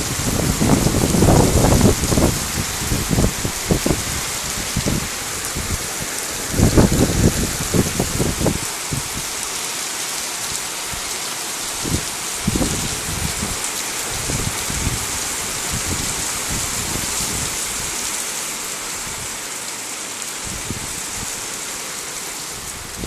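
Heavy rain pouring down in a steady, dense hiss, with irregular low thuds that are frequent over the first several seconds and grow sparser after.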